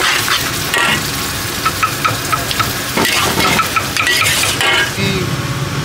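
Mee goreng noodles sizzling in a hot wok while a metal ladle stirs and tosses them, with scattered scrapes and clanks of the ladle against the wok.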